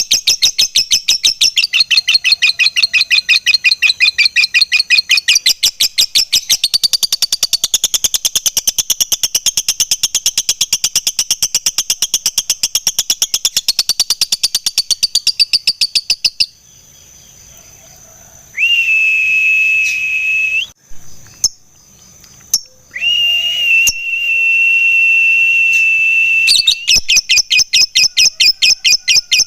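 Lovebird singing its long ngekek chatter: a rapid, evenly repeated string of shrill notes. About halfway through it breaks off, and in the gap come two steady, level high whistles. The chatter resumes near the end.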